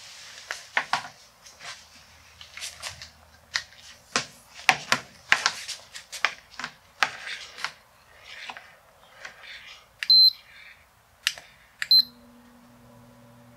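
Clicks and knocks of handling parts and plugs, then two short electronic beeps from the air filter's control board as its power button is pressed, about two seconds apart. Right after the second beep the blower motor starts and runs with a steady hum: with its new start capacitor and board capacitor it now starts.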